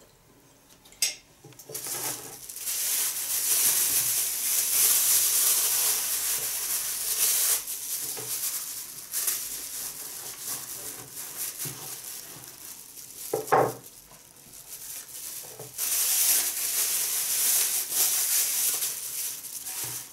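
A thin clear plastic bag rustling and crinkling as it is handled, in two long stretches: the first starts about two seconds in, and the second runs through the last few seconds. There is one sharp click just before the rustling starts.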